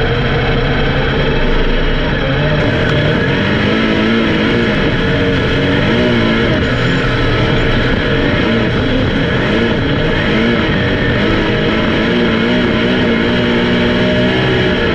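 Race car engines running on the track, their pitch rising and falling over and over as the cars speed up and slow down.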